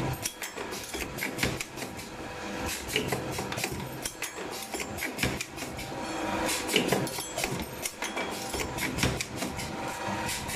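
Automatic strip ring forming and welding machine running: a steady motor hum under frequent mechanical clicks and clanks as the strip is fed, bent into rings and clamped.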